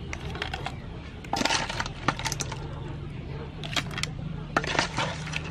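A serving spoon clinking and scraping against a ceramic plate as crab salad, with pieces of hard blue crab shell, is spooned onto it. The clicks come in about four short clusters.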